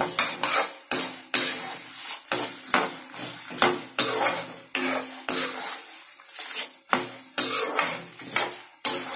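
Steel ladle scraping and clinking against an iron kadai, about two to three strokes a second, some strokes leaving the pan ringing briefly, as peanuts and dals are stirred while roasting in oil. A faint sizzle of the frying oil runs underneath.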